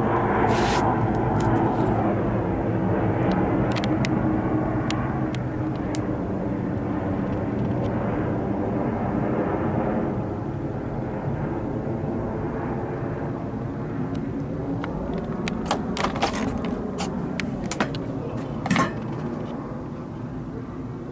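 Air Force One, a four-engined Boeing 747-based VC-25A jet, passing overhead: a steady jet roar with slowly gliding engine tones, easing off a little toward the end. A few sharp clicks come through early on and again in a cluster near the end.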